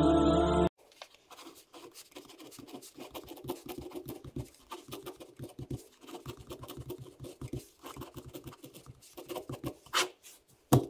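Pen writing on graph paper: a run of short scratchy strokes as letters are written, then one louder, longer stroke about ten seconds in as a line is drawn. A music track cuts off in the first second.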